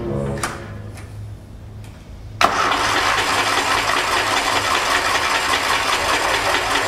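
Kohler Magnum 20 engine being cranked on its electric starter without catching. The starter winds down at the very start; after a short pause there is a sharp click and a second steady crank of about five seconds that also fails to fire. The engine is starved of fuel, which the owner puts down to a probably weak fuel pump.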